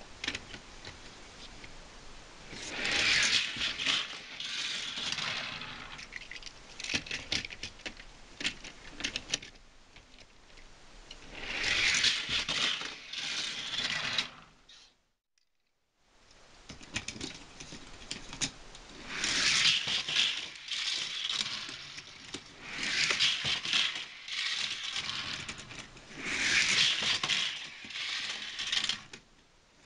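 Hot Wheels die-cast toy trains with metal bases rolling and rattling along plastic Hot Wheels track in repeated runs. Each run swells and fades over a couple of seconds, with smaller clicks and clatters between runs. The sound cuts out briefly about halfway through.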